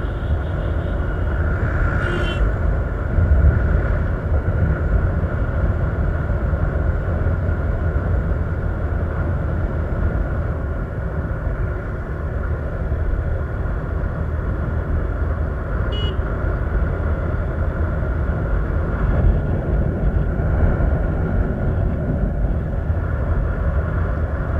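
Vehicle travelling on the road: a steady low rumble of engine and road noise, with two brief high-pitched sounds, one a couple of seconds in and one about two-thirds of the way through.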